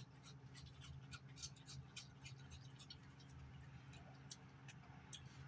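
Near silence broken by faint, irregular little clicks and smacks of a raccoon chewing a cookie.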